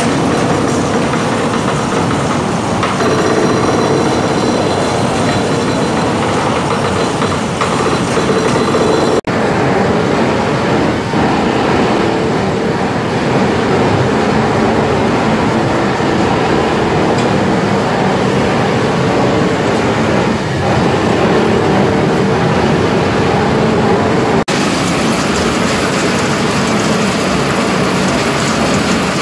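Palm kernel oil mill machinery running steadily and loudly, including a sprocket-and-chain drive, a continuous mechanical din. It cuts out for an instant twice.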